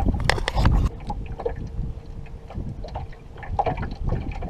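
Wind buffeting the microphone on an open bass boat, cutting off abruptly about a second in. Then quieter boat sounds: scattered light clicks and knocks with a faint steady hum.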